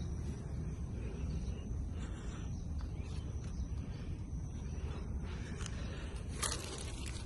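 Steady low outdoor background rumble, with a brief scratchy noise about six and a half seconds in.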